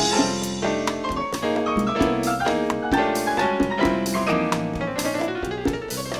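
Cuban jazz band playing live: a piano solo on a stage keyboard, fast runs of notes over steady drums and bass, with a rising run near the end.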